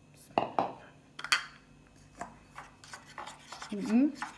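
A spoon clinking and scraping against a ceramic mug as dry powder is stirred, with a few sharp knocks in the first second and a half and lighter ticks after. A brief murmur of a voice comes near the end.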